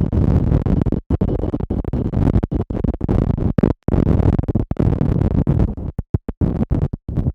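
Heavy wind buffeting on an SJCAM SJ8 Pro action camera's stock external microphone while riding a motorcycle: a loud, low rumble that cuts out to silence for split seconds, about a second in, near the middle, and several times in quick succession near the end. The wind blast overloads the mic and makes the audio drop out.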